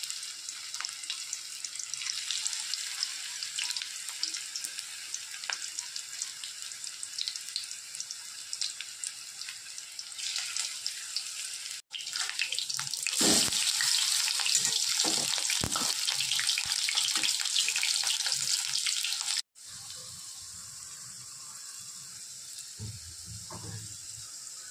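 Spinach pakoras frying in hot oil in a steel kadai, a steady sizzling crackle. In the middle stretch the sizzle is loudest and a metal spatula knocks and scrapes against the pan as the fritters are turned.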